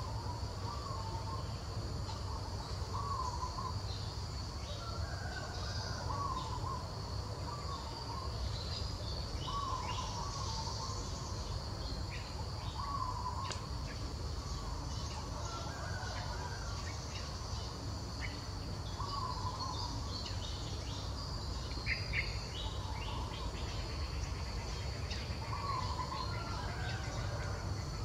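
A bird repeats a short warbling call about every two to three seconds over a steady high drone of insects, with a low rumble underneath.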